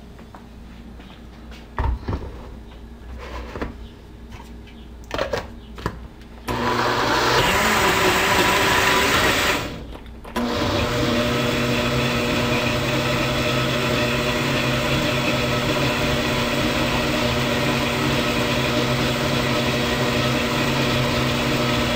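Countertop blender with a glass jar: a few knocks as the jar is handled and set on the base, then the motor starts about six and a half seconds in, blending a creamy liquid mixture. It stops briefly near ten seconds, then starts again and runs steadily.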